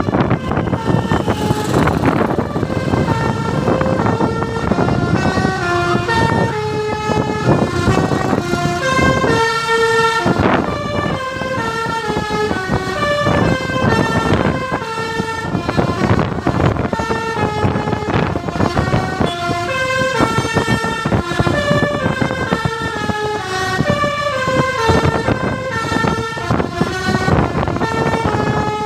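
A multi-tone Basuri 'telolet' bus horn playing a tune of short stepped notes that go up and down, over a rough, steady noise.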